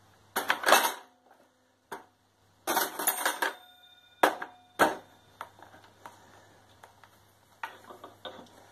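High-heeled shoe kicking into the glass door of a wooden wall-mounted pendulum clock: a series of crashes and knocks as the glass breaks and shards clink, with brief metallic ringing after the heavier hits.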